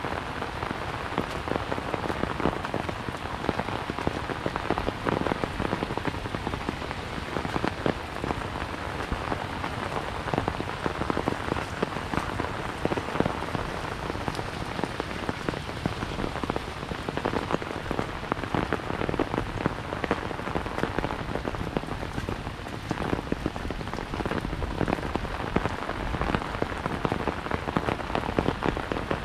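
Steady rain falling on an umbrella held overhead: a dense, even patter of many small drop ticks that does not let up.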